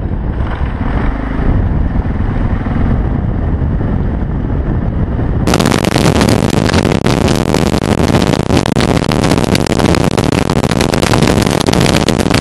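Motorcycle being ridden, engine running under a steady rush of wind and road noise on the bike-mounted camera microphone. About five seconds in the sound changes abruptly to a louder, hissier rush of wind.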